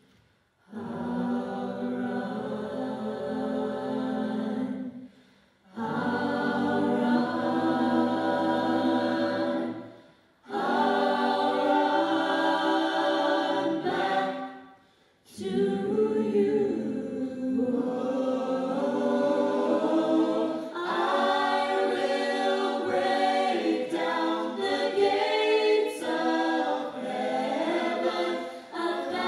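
Vocal jazz ensemble singing in close harmony: held chords in phrases separated by brief breaks of near silence, with more moving parts in the second half.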